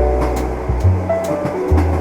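Relaxed jazz with a walking bass line and sustained keyboard notes, over the faint steady rumble and clatter of train wheels.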